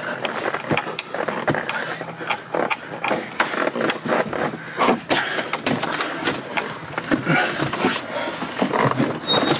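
Irregular knocks, clicks and rustling from hands working inside a car's back seat area, around the rear seat and rear window.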